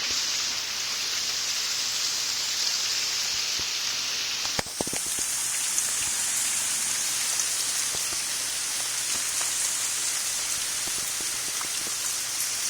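Steady rain falling, heard as an even hiss. There is a short knock about four and a half seconds in, after which the hiss sounds a little brighter.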